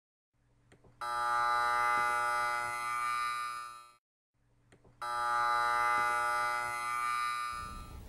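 Trane furnace blower motor humming steadily as it tries to start but barely turns, played twice for about three seconds each, with a faint click just before each. The uploader puts it down to either the motor itself or its capacitor.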